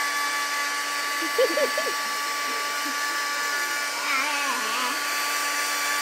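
Handheld hair dryer running steadily: a constant high whine over a hiss of rushing air, close to the microphone.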